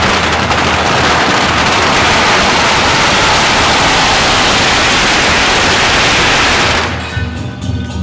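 A long string of firecrackers going off in a rapid, continuous crackle of explosions. It dies away about seven seconds in, and percussion music takes over.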